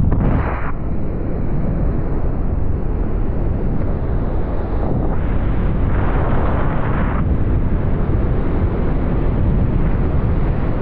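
Strong wind rushing over the microphone during a freefall along a cliff face, a continuous rumbling roar that swells for a couple of seconds near the middle.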